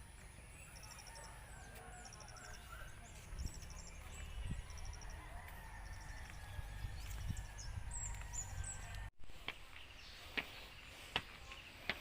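Outdoor birdsong: small birds repeating quick, high trilled calls, with a rooster crowing in the distance, over a low rumble. About nine seconds in the sound drops out briefly, and a few sharp taps follow near the end.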